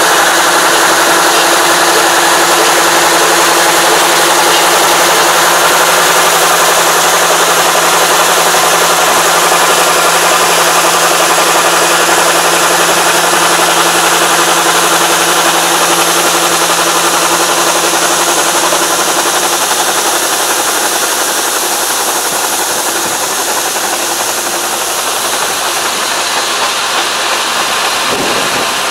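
Kubota ARN460 combine harvester running while its unloading auger pours threshed rice into a wooden grain box: a steady engine hum under a loud, even hiss of grain rushing from the spout. About two-thirds of the way through a low hum drops out and the sound eases a little.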